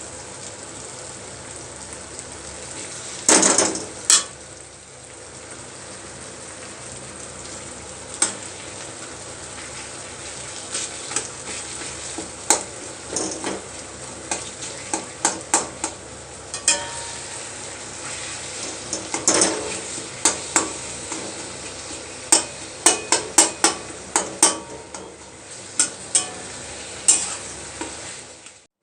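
Food sizzling steadily in a frying pan, stirred with a utensil that clinks and scrapes against the pan in irregular bursts.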